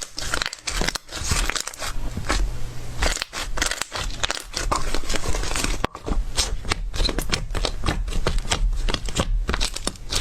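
Slime being squeezed and pressed by hand, giving dense, irregular crackling and popping clicks, with a short break about six seconds in.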